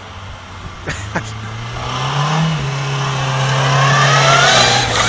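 Volkswagen Golf Mk3 engine accelerating as the car drives past, growing steadily louder as it nears. Its note rises, holds, then steps down about four and a half seconds in.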